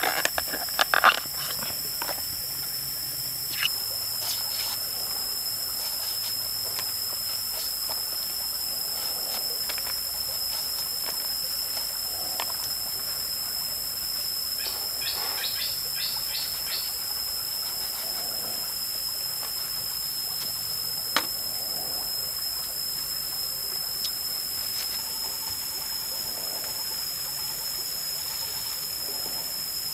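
Steady high-pitched insect drone, with crisp snaps and tearing clicks as the tough bracts of a banana flower are peeled off by hand, loudest about a second in and coming again in a quick run about halfway through.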